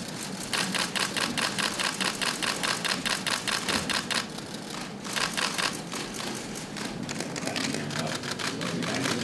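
Camera shutters firing in fast bursts during a posed handshake photo call: a rapid, even run of clicks lasting about three and a half seconds, then a second short burst about five seconds in.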